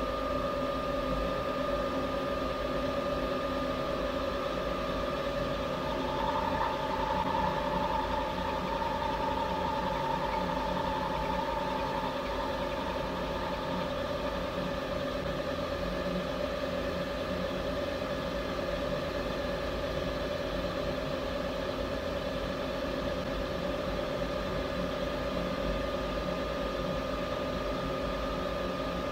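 CNC milling machine's spindle running steadily while an end mill cuts machinist wax, with a steady hum of several tones. A higher whine joins from about six seconds in and stops near fourteen seconds.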